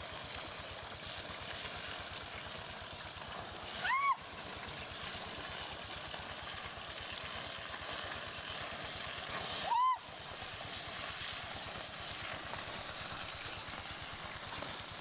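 Shallow forest stream running steadily, with two short whistle-like calls about six seconds apart, each rising then falling in pitch.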